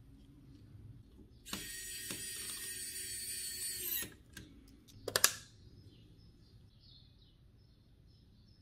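A small power tool whirs at a steady high pitch for about two and a half seconds, stops, and is followed about a second later by a quick cluster of sharp clicks.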